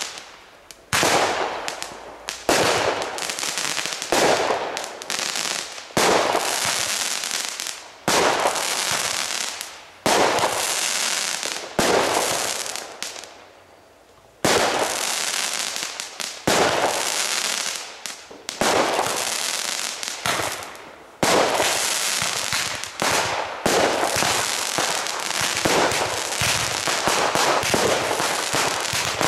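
Consumer firework battery firing shot after shot. Each shot is a sharp bang of launch and burst that trails off, coming roughly every one and a half to two seconds, with a short lull about halfway through and shots coming thicker near the end.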